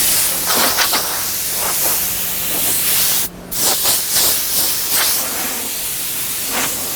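Paint being sprayed: a loud, steady hiss of spray, stopping briefly about three seconds in and then starting again.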